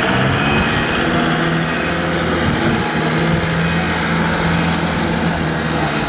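Diesel engines of a small dump truck and a wheel loader running with a steady engine note under a broad mechanical noise.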